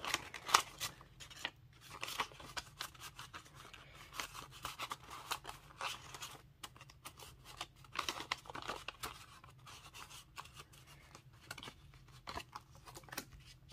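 Paper banknotes rustling and snapping as they are flipped through and counted by hand, with the crinkle of a clear plastic cash envelope as the bills go back into it.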